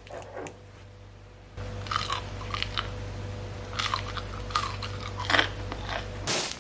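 Close-up biting and chewing of spicy sauce dumplings tossed with raw vegetables such as cabbage and cucumber: a few separate crunchy mouthfuls, the loudest near the middle and again near the end.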